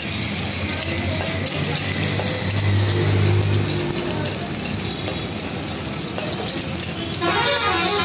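Paneer cubes sizzling in hot oil in an iron wok, with the steel spatula scraping and tapping against the pan as they are stirred. A low steady hum swells for about a second around the middle, and voices come in near the end.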